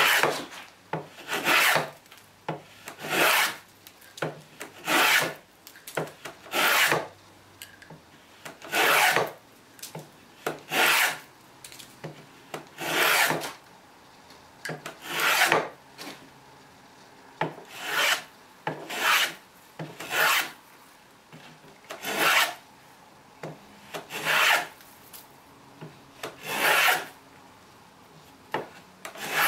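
Hand plane taking repeated strokes along a wooden board, each pass a short rasping swish of the blade cutting a shaving, about one every one and a half to two seconds.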